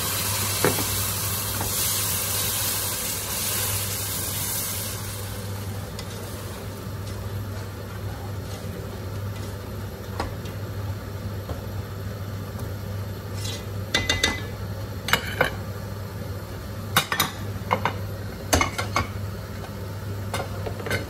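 Fresh tomato paste hitting hot oil and spices in a pot, sizzling loudly for the first few seconds and then dying down as it is stirred in. In the second half a slotted spatula scrapes and taps sharply against the pot several times, over a steady low hum.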